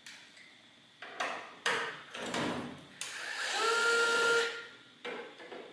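Hand tools clattering and rattling on a workbench, then a small power tool, a drill or electric screwdriver, whirring for about a second and a half.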